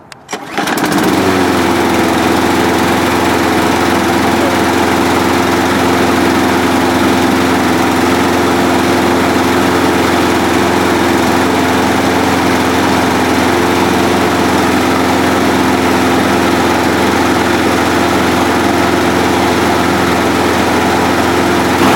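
Briggs & Stratton Quantum single-cylinder lawnmower engine starting about half a second in and then running steadily at an even speed without dying, now that water has been drained from its carburetor.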